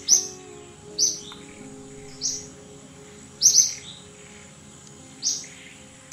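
A bird chirping: six short, high chirps, irregularly spaced about a second apart, two in quick succession about halfway through. Soft background music plays underneath.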